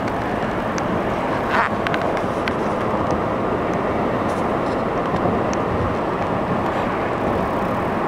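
Steady road and engine noise inside a moving vehicle's cabin: an even rumble and hiss, with a few faint clicks in the first few seconds.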